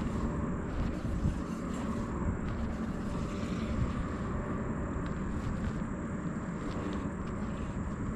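Wind buffeting the camera's microphone: a steady low rushing noise.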